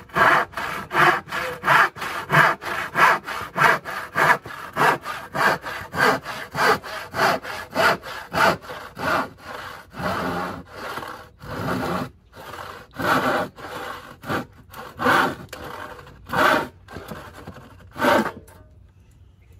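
A hand saw cutting through a wooden board in back-and-forth strokes, about two a second at first, then slower and more widely spaced in the second half, stopping near the end.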